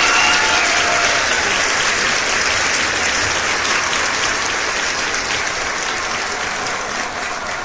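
Applause: many hands clapping in a dense, steady patter that slowly gets quieter.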